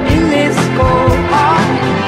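Background music: a song with a steady drum beat, bass and a gliding melody line.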